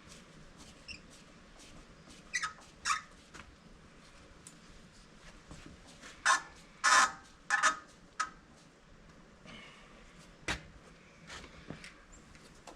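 Scattered clicks and knocks of parts being handled and fitted back on the excavator's air filter housing, a cluster of sharper clacks in the middle and a single knock later.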